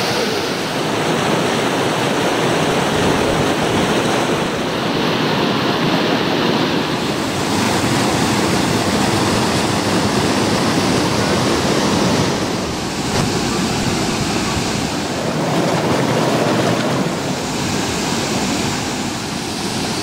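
Water from a small river waterfall and rapids rushing and splashing over large boulders, a steady loud rush of noise.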